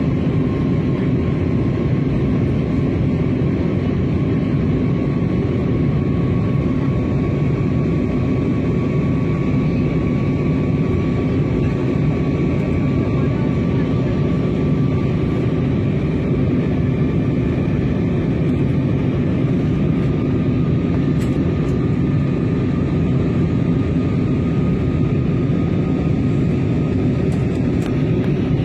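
Airliner cabin noise: a steady drone of the engines and rushing air, with a faint whine that rises slowly in pitch.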